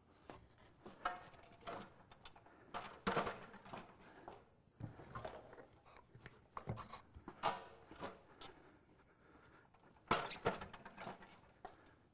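Scattered light clicks, knocks and rustles of hands working on top of a wooden sauna roof, handling and plugging together heater wire plugs, with a few louder knocks here and there.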